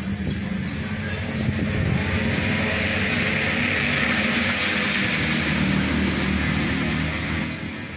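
An engine running nearby, a steady hum with a hiss above it, growing louder about two seconds in and easing off near the end.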